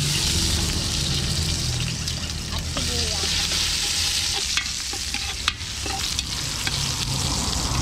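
Chopped garlic sizzling in hot cooking oil in a large pot while a metal ladle stirs it, with a few sharp clinks of the ladle against the pot, the loudest about five and a half seconds in.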